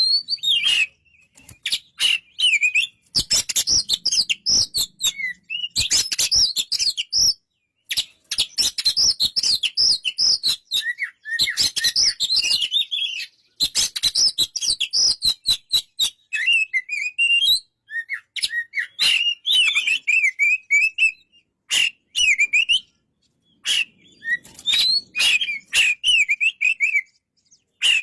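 Oriental magpie-robin (kacer) singing: bursts of varied whistled phrases a few seconds long, broken by short pauses, with many sharp clicks among the notes.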